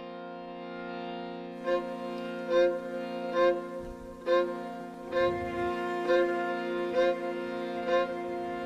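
Background instrumental music: a held drone of several notes, joined about two seconds in by plucked notes at an even pace of about one a second.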